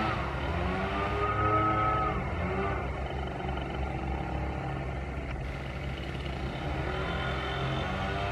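Engines of tree-removal equipment running: a low steady drone, with a higher-pitched engine revving up and back down a few times in the first three seconds.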